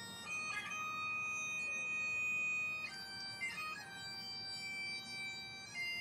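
Bagpipes playing a slow tune: long held notes, with a quick ornamented change of note about half a second in, about three seconds in, and near the end.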